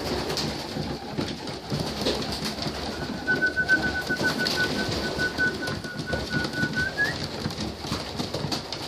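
Racing pigeons cooing and pecking at grain on a concrete floor, with many short beak clicks. From about three seconds in to about seven, a steady high whistle-like tone sounds over them and rises briefly at its end.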